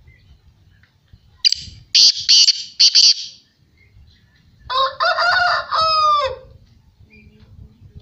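Black francolin calling loudly at close range: a burst of harsh, rasping notes about a second and a half in, then a second phrase of clearer notes that ends falling in pitch.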